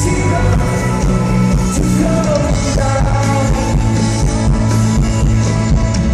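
A live rock band playing with a lead singer holding sung notes over guitars, bass and drums.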